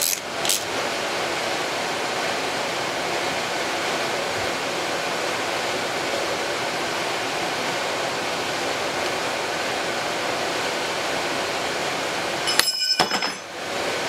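Steady, even rushing background noise, with a few light clicks at the very start and a short burst of sharp metallic clinks near the end.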